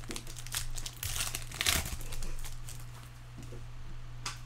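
Foil trading-card pack wrapper being crinkled and torn open: a quick flurry of crackles over the first couple of seconds, then one more crackle near the end.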